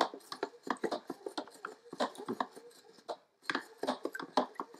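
Wind-up plesiosaur toy's clockwork-driven flippers spinning and slapping the water in a shallow plastic tub: a rapid, irregular patter of small splashes and clicks.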